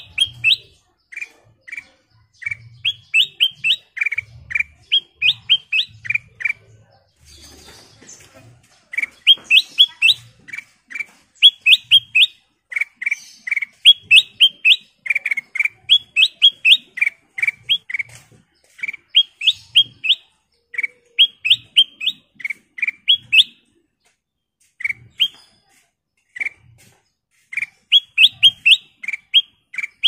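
Ruby-throated bulbul (kutilang emas) singing: short, bright chirping notes in quick runs of rising phrases, repeated over and over, with brief pauses about seven seconds in and again near 24 seconds. Soft low thumps sound under some of the notes.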